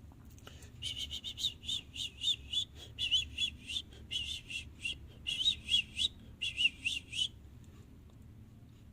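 A small bird chirping: rapid runs of short, high chirps in several bursts, stopping about a second and a half before the end.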